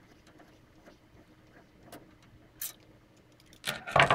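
Faint metallic ticks of a Phillips screwdriver backing a screw out of a PC case's rear expansion-slot bracket. Near the end comes a short clatter, the loudest sound, as the screwdriver is set down on the desk.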